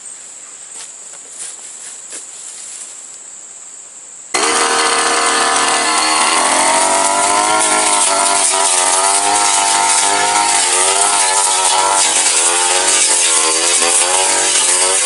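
Crickets chirring for about four seconds, then a backpack two-stroke brush cutter fitted with a long steel blade cuts in suddenly and runs loud, its engine revving up and down as the blade slashes through grass and small woody brush.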